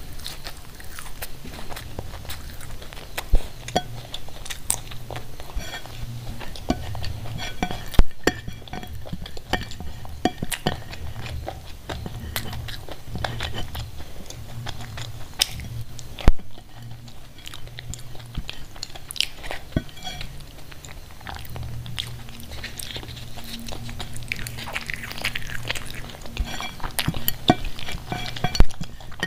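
Close-miked mouth sounds of someone eating soft khichdi by hand: chewing and wet lip smacks. Fingers wipe and scrape a ceramic plate, with scattered sharp clicks and a few louder ones, over a low hum.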